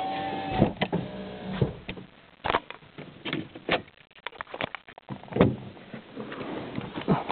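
A car's electric power-window motor whines at a steady pitch and stops under a second in. Irregular clicks and knocks follow.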